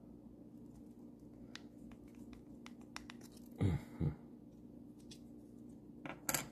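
Faint clicks and scratches of a small plastic water pump housing and its metal shaft being handled and turned by hand, over a steady low hum. Two louder knocks come a little past halfway, and another near the end.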